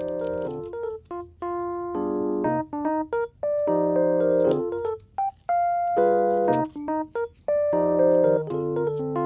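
Background music: a gentle piano melody played in chords, each phrase struck and left to ring out.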